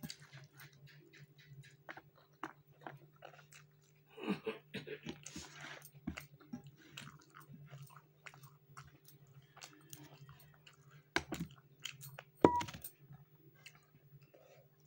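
Close-up chewing of rice and curry eaten by hand: soft, wet mouth clicks and smacks throughout. Two sharper knocks come near the end, one with a brief ring, over a steady low hum.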